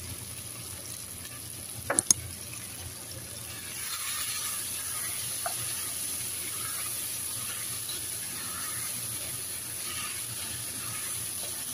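Diced potatoes and spices sizzling in a non-stick pot as they are stirred with a wooden spoon. Two sharp knocks about two seconds in, and the sizzling grows louder about four seconds in.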